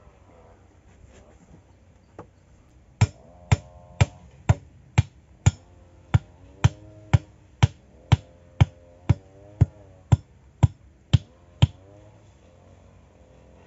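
Evenly spaced blows on a wooden stake, about two a second, driving it into the ground to hold a log of the bed: a run of about eighteen sharp knocks that starts about three seconds in and stops shortly before the end.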